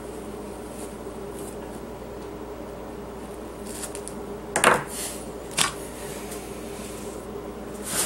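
Scissors snipping a small clump of elk hair off the hide: two sharp snips about a second apart midway through, over a steady electrical hum.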